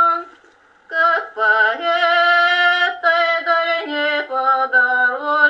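Unaccompanied female singing: a slow song of long, held notes that stops briefly just under a second in, then resumes.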